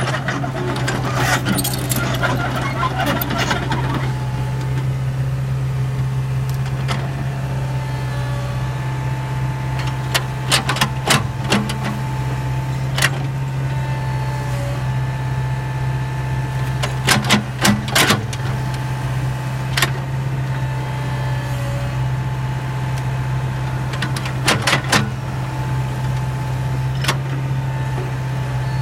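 Komatsu PC70 hydraulic excavator's diesel engine running steadily while digging, with a rattling clatter in the first few seconds and sharp metallic knocks and clanks from the bucket and linkage, several of them in quick clusters.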